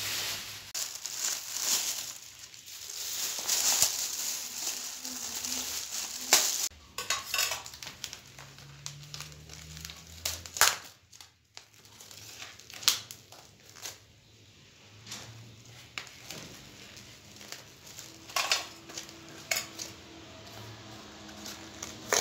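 Plastic sheeting crinkling and rustling for about the first six seconds as a plastic floor-cloth is spread out. After that come scattered clinks and knocks on a stainless steel bowl and crackles of plastic wrap as raw chicken gizzards are tipped out of foam trays into the bowl.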